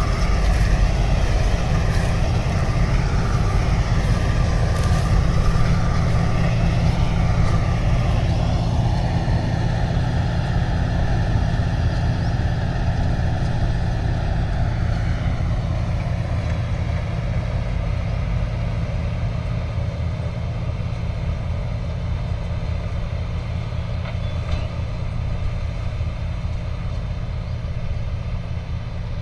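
Combine harvester running in standing wheat: a steady low engine and machinery drone with a higher whine that shifts in pitch a couple of times, slowly growing fainter as the machine moves away.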